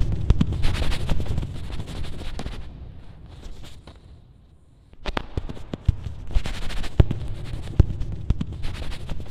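Drawing on a long hanging sheet of plastic paper, picked up by contact microphones and amplified: dense crackling and sharp knocks over a low rumble. It dies away about three seconds in and starts again sharply about five seconds in.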